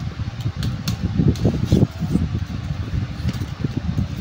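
Fluttering rumble of moving air on the microphone, like a running electric fan, with a few faint light clicks as kittens scramble and wrestle on a plastic mat.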